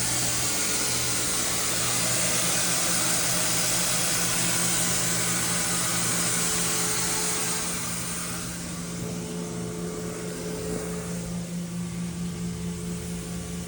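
Idle machine tool's motors and cooling fans running: a steady electrical hum under an even fan hiss, the hiss dropping off about eight seconds in.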